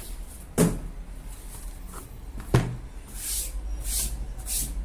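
Two thumps of a cardboard product box being set down on a desk mat, about two seconds apart, followed by several short rustles as the box is handled.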